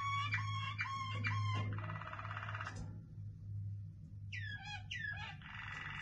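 Waterslager canary singing: four quick repeated sweeping notes, a fast trill, a short pause, two downward-sliding whistles, then another trill starting near the end, over a steady low hum.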